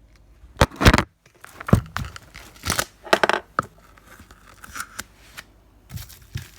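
Dull steak knife sawing and tearing at plastic food packaging: irregular crinkling and ripping, the loudest rips about a second in, as the blade barely cuts the plastic.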